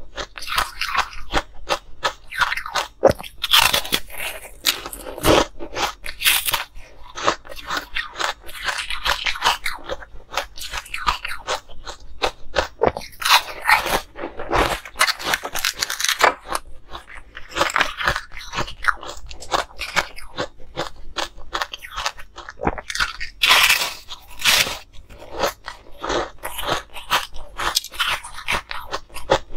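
Close-miked biting and chewing of frozen ice: dense, irregular crunching and crackling as the ice breaks up in the mouth, with no pauses.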